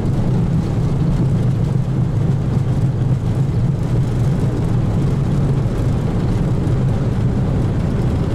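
Steady low rumble inside a Boeing 737NG cockpit as the airliner rolls out along the runway just after touchdown. The level stays even throughout.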